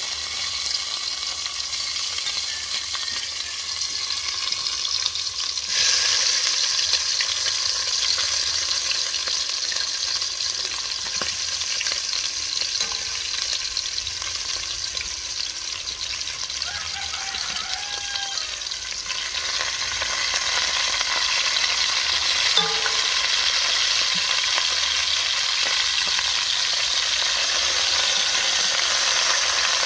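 Browned chicken pieces sizzling in hot oil in a cooking pot as more pieces are dropped in. The sizzle steps up about six seconds in and grows louder again in the second half.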